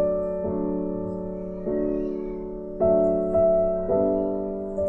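Background music: a piano-like keyboard playing slow, held chords, with a new chord about every second.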